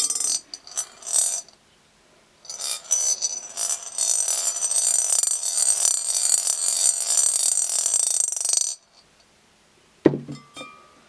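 Toy gumball machine: a run of ratcheting clicks as the knob is turned, then a gumball rolling round the plastic spiral track with a steady rattle for about six seconds. It ends in a sharp knock and short clatter near the end.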